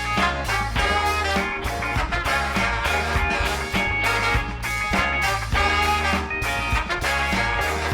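Live soul band playing an upbeat instrumental passage: horns over bass, guitar and drums with a steady beat.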